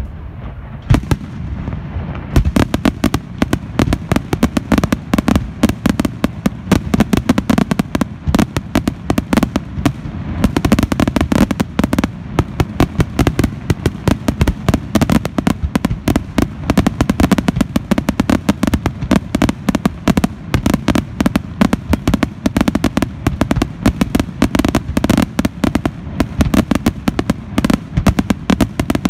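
Aerial fireworks display: a few separate shell bursts, then from about two seconds in a dense, continuous barrage of bangs and crackles, many per second.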